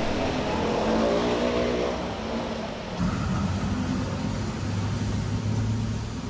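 Street traffic: a motor vehicle's engine passing close by, its pitch rising and then falling, then a steady low engine hum after an abrupt change about three seconds in.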